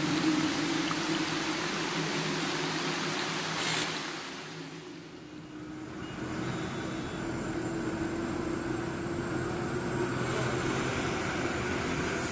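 Steady hiss of rain over a low hum, fading out about four seconds in. Then a moving bus runs steadily, its engine drone and road noise heard from inside the bus.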